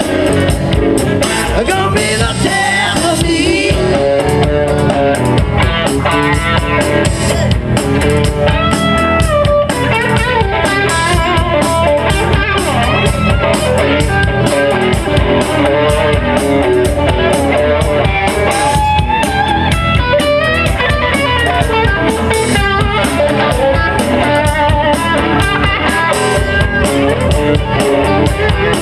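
Live rock band playing an instrumental passage through a PA: electric guitars carrying a bending melodic line over bass guitar and a drum kit.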